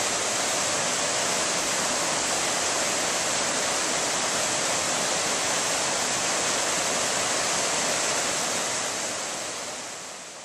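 Steady rush of a river flowing over rocks, fading down near the end.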